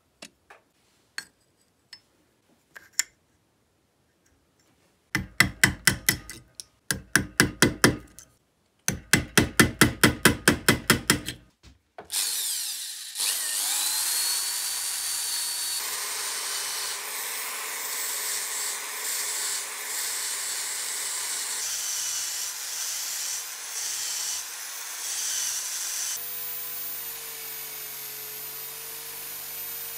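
Workshop tool sounds: a few light clicks, then two runs of quick, even strokes of a hand tool, about six a second. About twelve seconds in, a power tool starts and runs steadily with a high whine.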